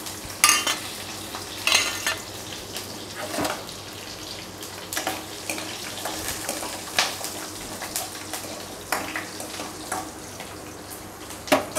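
Garlic cloves, dried red chilli and green chilli sizzling gently in ghee with cumin and coriander seeds in a stainless steel kadai on a low flame. A steel ladle scrapes and clinks against the pan every second or two as they are stirred.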